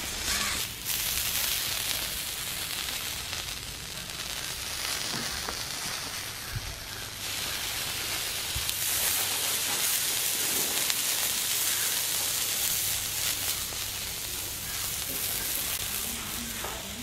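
A giant freshwater prawn sizzling in coconut oil on a hot flat iron pan: a steady frying hiss.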